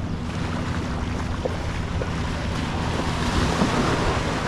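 A boat engine running steadily under waves washing on the shore, with wind on the microphone; the wash swells about three seconds in.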